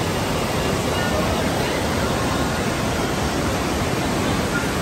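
Swollen, muddy mountain river rushing through boulder-strewn rapids: a steady, loud, unbroken rush of water.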